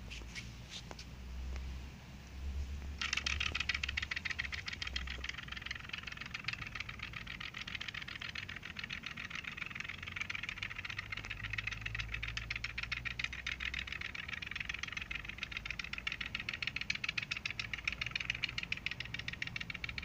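Wooden woodpecker whirligig turning in the wind: its feather-bladed propeller drives the mechanism and the spring-mounted wooden woodpeckers, making a rapid, continuous clicking clatter that starts suddenly about three seconds in.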